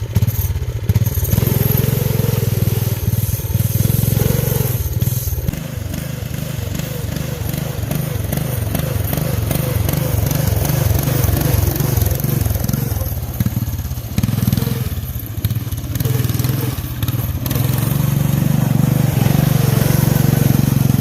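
Lawn tractor engine running as the tractor is driven on tire chains; the engine note eases off about six seconds in and picks up again in the last few seconds.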